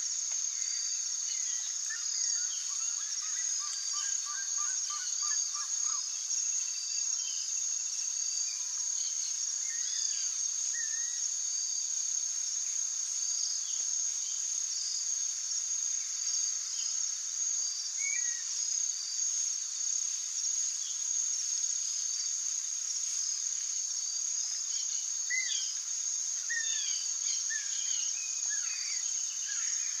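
Steady high-pitched insect chorus, with small birds calling over it: a quick run of repeated notes a few seconds in and a flurry of short chirps near the end.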